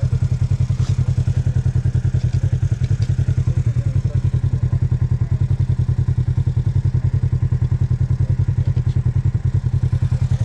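Small engine idling steadily with a rapid, even pulse.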